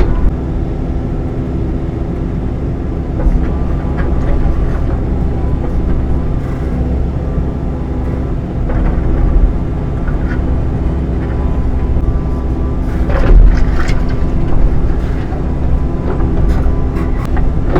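Midsize excavator's diesel engine running steadily under work, with a louder low thump about two-thirds of the way through.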